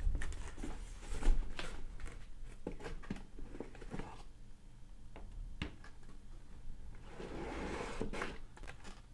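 Cardboard shipping box being opened and rummaged through by hand: flaps scraping and rustling, with scattered knocks and a low thump about a second in, and a longer stretch of rustling near the end as the hands dig inside the box.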